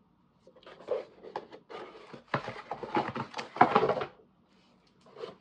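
Handling noise close to the microphone: an irregular run of light knocks, clatter and rustling as objects are moved about, loudest about three and a half seconds in.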